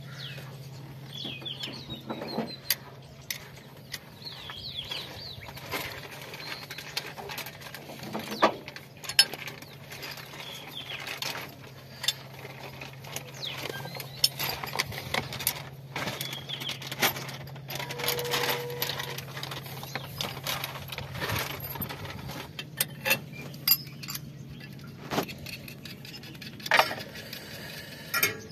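Scattered metallic clicks and clinks as a bent steel control rod and its linkage are worked into place by hand on a Massey Ferguson 7250 tractor's spool-valve control, over a steady low hum.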